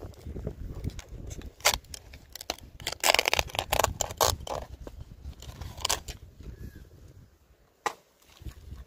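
Tapping knife cutting and scraping at the fibrous crown of a palmyra palm: a series of sharp cracks and crunches, thickest a few seconds in, over a low rumble.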